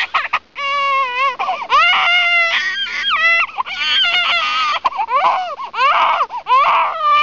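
An infant crying: a string of high-pitched wails, each bending up and down in pitch, following one after another with brief catches of breath between them.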